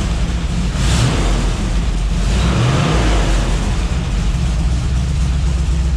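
A carburetted V8 engine running on a cold start without choke, revved up by hand at the throttle about a second in and again around three seconds. With new spark plugs and plug wires it runs without its earlier miss, though the owner thinks it is still running rich.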